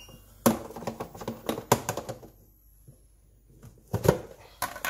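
Irregular light clicks and knocks, in a quick run over the first two seconds and again near the end, with a quiet gap between.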